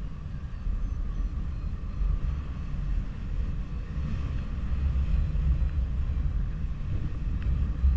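Airflow buffeting the camera microphone in paraglider flight: a steady low rumble that swells and eases.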